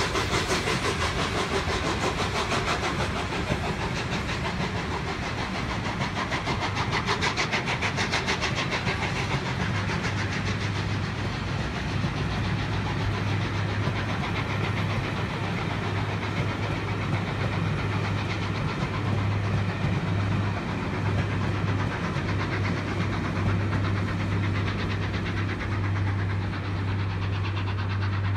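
Peppercorn A1 Pacific steam locomotive 60163 Tornado, a three-cylinder engine, exhausting in fast regular beats as it pulls a train away from a station, fading as it draws off. A steady low hum comes in about a third of the way in and holds.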